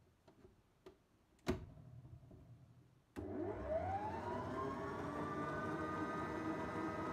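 Stand mixer's head lowered into place with one sharp clunk; about three seconds in its motor switches on, whining up in pitch over about a second and settling to a steady run as the dough hook turns through the flour.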